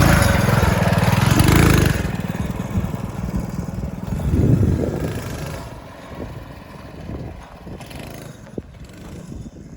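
Off-road buggy's 200cc single-cylinder Honda engine revving hard, then easing off about two seconds in, with another surge of throttle about four and a half seconds in before it settles to a lower, quieter run.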